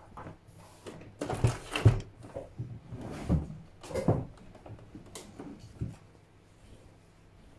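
Heavy fabric being folded, rustled and slid across a table and up to a sewing machine, with a few knocks from handling the machine. The sounds are irregular and loudest about two and four seconds in.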